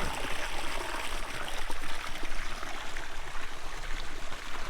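Shallow rocky forest stream running and trickling steadily over stones.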